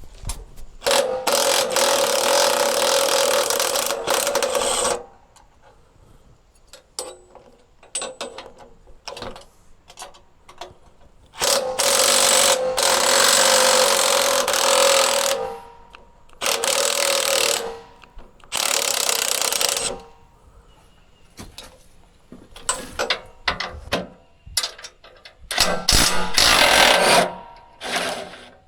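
A motorised machine or power tool running in five short bursts of one to four seconds each, with a steady hum under the noise and sharp clicks and clanks in the gaps between.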